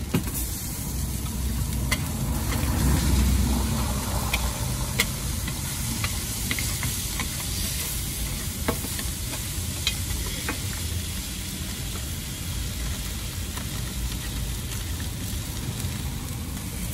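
Burger patties sizzling on a flat-top griddle, a steady frying hiss, with scattered sharp clicks and taps of utensils throughout.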